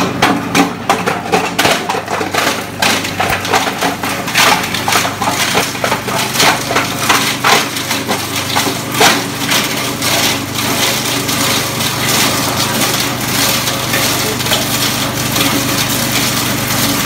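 Plastic shredder running under load: a steady motor hum with loud, irregular cracking and snapping as plastic is chewed up. The cracking is densest for the first ten seconds or so, then settles into a more even churning.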